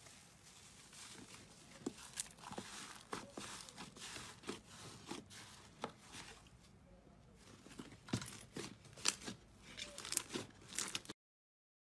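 Sticky slime being peeled out of a plastic tray and then squeezed and kneaded by hand. It gives a run of crackles and small pops that come thicker and louder near the end, then cut off suddenly.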